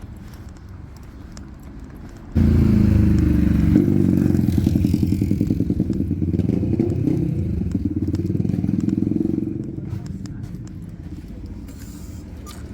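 An engine comes in abruptly and loud about two seconds in, runs steadily with a low pitched hum, then drops back to a quieter level near the end.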